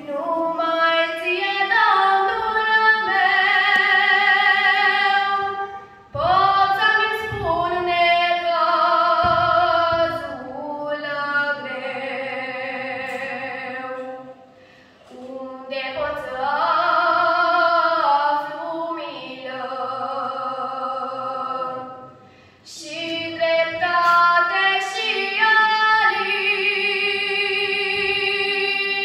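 A woman singing a Romanian Orthodox communion hymn (priceasnă) into a handheld microphone, in long held notes with vibrato, with three short breaks between phrases.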